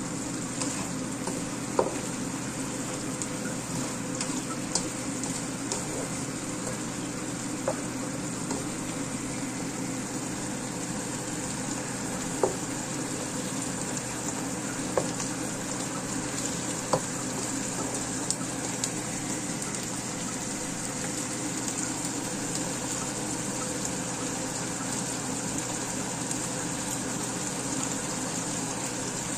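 Sambal sauce simmering in a wok around fried fish, a steady bubbling sizzle with occasional sharp pops, over a steady low hum.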